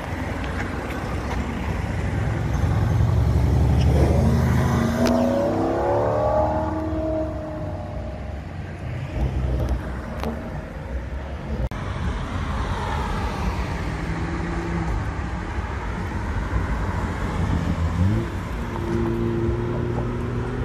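A performance car's engine accelerating hard, its revs climbing steeply about five seconds in, over the noise of city traffic. Near the end another engine revs up and then holds a steady note.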